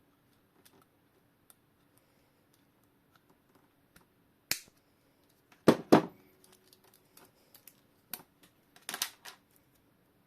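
Cutters snipping and small tools clicking on the metal of a clock movement. There is a single sharp click about four and a half seconds in, a loud double snap near six seconds, and a quick cluster of clicks near nine seconds, over a faint steady hum.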